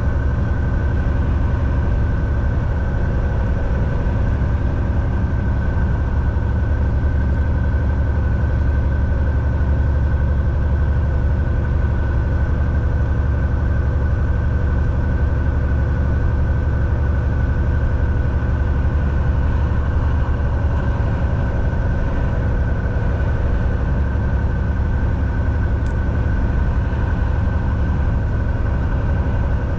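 Steady drone of a semi-truck's diesel engine and road noise while driving, with a deep rumble and a thin steady whine above it.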